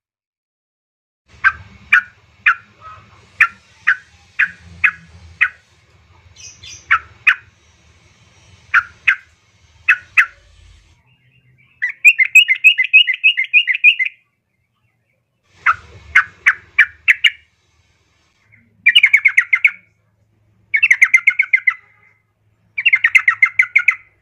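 Yellow-vented bulbul (trucukan) calling: a run of short sharp chips about two a second, then several bursts of rapid chattering, each a second or two long, with short gaps between. This is a female's call used as a lure to set male bulbuls singing.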